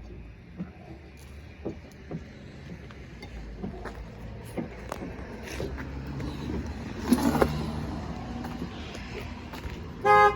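Scattered light knocks and clinks of wheel nuts and a lug wrench being worked by hand during a tyre change, while a car passes by, loudest about seven seconds in. A car horn sounds right at the end.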